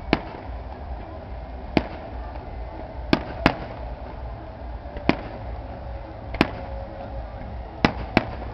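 Aerial firework shells bursting: about eight sharp bangs at irregular intervals, two of them in quick pairs, over a steady low rumble.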